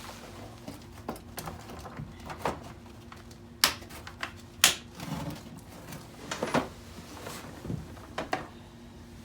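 Clicks, knocks and clatter of small objects being handled and set down, with two sharp clacks a second apart near the middle, over a faint steady hum.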